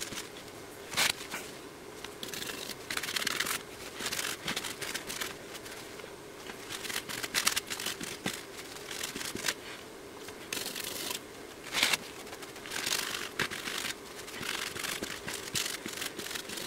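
Scrubbing a circuit board clean of flux with isopropyl alcohol: irregular scratchy rubbing strokes with a couple of sharp clicks.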